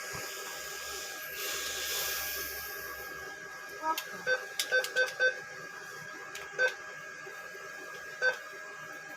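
Short electronic keypad beeps from an ATM as its buttons are pressed: a quick run of about five, then single beeps a second or two apart, over a steady thin electrical hum.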